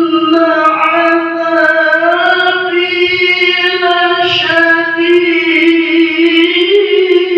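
A man's voice reciting the Quran in the melodic tilawah style into a microphone, holding one long, slightly wavering note through most of the phrase.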